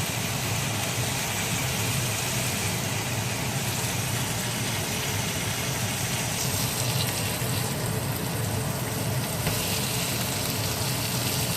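Beef burger patties frying in a pan, a steady sizzle over a low steady hum.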